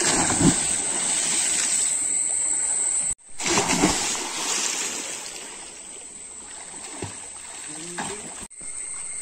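A swimmer diving headfirst into a pond and hitting the water with a loud splash, followed by churning water. After a break about three seconds in, another loud splash, then quieter sloshing as people swim.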